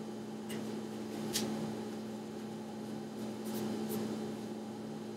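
Steady low electrical hum of a quiet small room, with a few faint short crackles of a paper tissue pressed and held against the lips.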